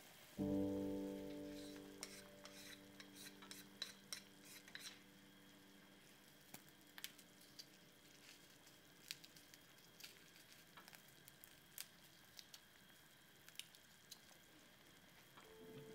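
Stew bubbling in a clay pot on a gas burner: scattered soft pops and crackles. About half a second in, a ringing tone of several pitches starts suddenly and fades over a few seconds.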